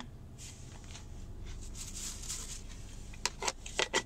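Plastic rustling and being handled, then several sharp clicks in quick succession: a plastic food container's lid being pressed and snapped shut.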